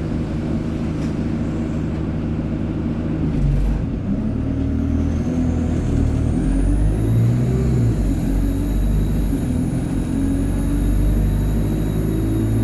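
ADL Enviro 200 bus's diesel engine accelerating through its Allison automatic gearbox, the engine note rising and shifting as it pulls. A high turbo whine comes in about five seconds in, climbs and then holds.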